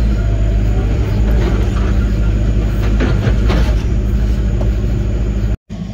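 Heavy-equipment diesel engine running steadily under load, with irregular metallic clanking and squeaking from the machine working. The sound cuts out briefly near the end.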